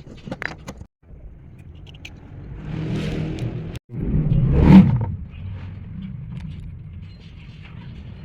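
2005 Toyota Camry engine running, revved up once about four to five seconds in and then settling back to a steady idle.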